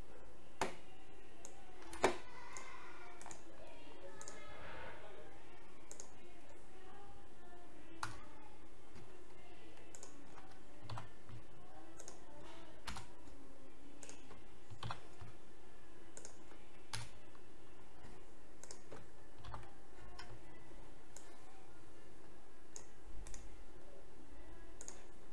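Single clicks of computer keyboard keys and a mouse, spaced a second or two apart, as lines of text are copied and pasted. A steady background hiss lies under them.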